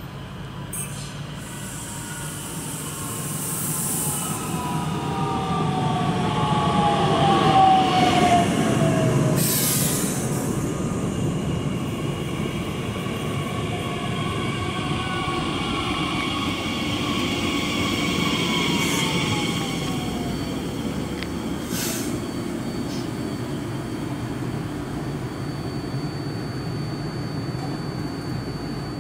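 Bombardier Talent 2 (class 442) electric multiple unit pulling in and braking to a stop at the platform. Its motor whine falls in pitch as it slows over steady rolling noise, loudest as it passes about eight seconds in, then settles to a steady hum once the train is standing.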